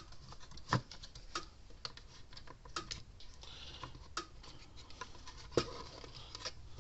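Irregular light clicks and taps of hands handling a capacitor, wires and a circuit board against a hard plastic fence-charger case while test-fitting the parts.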